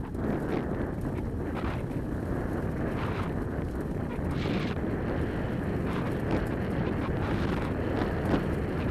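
Steady rumbling travel noise of a dog-drawn rig moving along a dirt trail, with wind buffeting the microphone and a few short, faint rattles.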